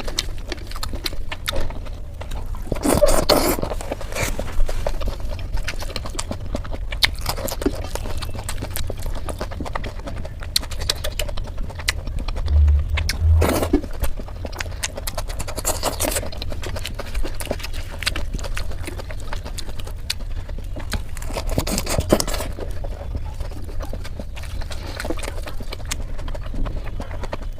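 Close-miked eating of fried eggplant slices (baigan bhaja): chewing, lip smacks and mouth clicks, with a few louder bites, over a steady low hum.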